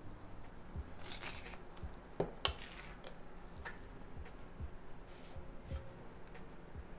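Soft rustling and scraping of self-adhesive ribbon trim being handled and pressed onto a clear plastic ornament ball, in a few short bursts, with two sharp clicks about two seconds in. Quiet background music plays underneath.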